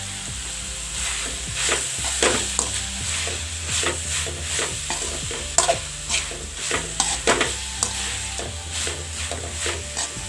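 Slotted metal spoon scraping and clinking against an aluminium kadai as shredded vegetables are stir-fried, over a steady sizzle of the vegetables in hot oil. The strokes come irregularly, a few each second.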